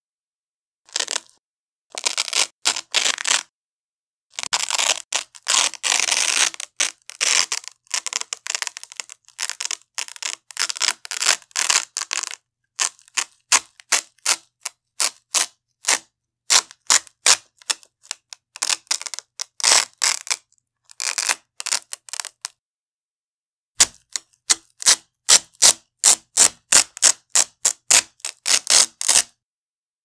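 Velcro hook-and-loop straps being peeled off a wide Velcro strap in short crackling rips, some long and dense, others broken into quick separate crackles about two to three a second, with brief pauses between runs.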